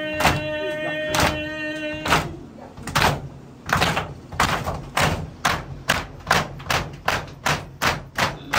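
Mourners doing matam, beating their chests in unison: sharp slaps at about one a second, speeding up to an even rhythm of about three a second from about three seconds in. For the first two seconds a voice holds a long note over the slaps.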